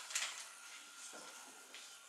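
Paper rustling as a hamburger is wrapped in it by hand, louder for a moment near the start.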